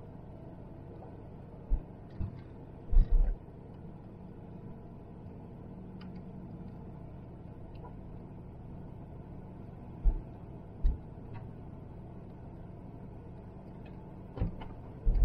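Night street ambience: a steady low hum of distant traffic, broken by a handful of brief low thumps, clustered about two to three seconds in, again around ten to eleven seconds, and once near the end.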